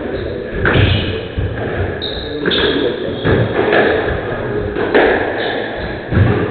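Squash ball knocks in a rally: the ball struck by rackets and hitting the court walls, a few sharp knocks a second or two apart, over a background murmur in a hall.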